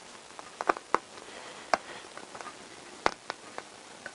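A handful of irregular sharp metallic clicks and taps as a circlip is worked by hand onto a motorcycle front-fork damping rod.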